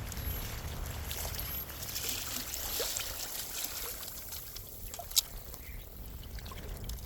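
Water splashing and trickling, with a low steady rumble underneath and a single sharp click about five seconds in.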